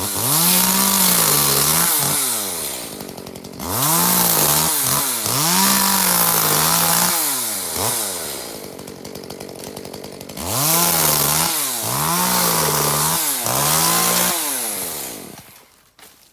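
Chainsaw cutting through bamboo stems, running at full throttle with its pitch dipping again and again as the chain bites. It drops to a lower, quieter run for a few seconds in the middle, revs up again, then falls away near the end.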